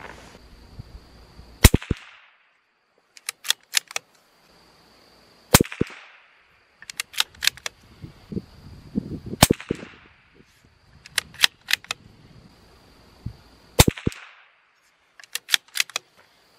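CZ 457 bolt-action .22 LR rifle firing Norma TAC-22 rounds: four shots about four seconds apart, each a sharp crack with a short echo. Between shots the bolt is worked, a quick run of small metallic clicks.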